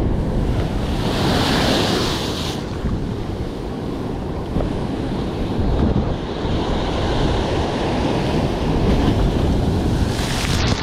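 Ocean waves breaking and washing in, with a louder rush of hissing surf between about one and two and a half seconds. Wind buffets the microphone.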